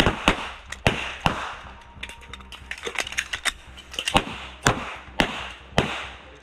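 Pistol shots at a range, each ringing out briefly. Four come in quick succession in the first second and a half, then a pause, then four more about half a second apart.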